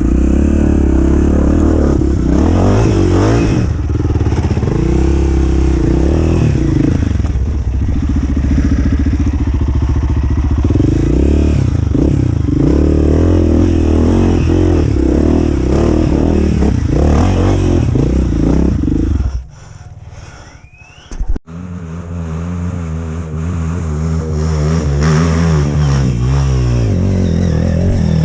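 Off-road dirt bike engine revving up and down as it climbs a rough trail, its pitch rising and falling constantly, with some clatter. About nineteen seconds in it drops suddenly to a much quieter level for about two seconds, then picks up again.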